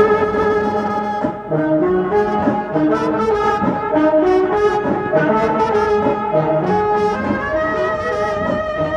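Several saxophones of an Indian brass band playing a melody together, close up.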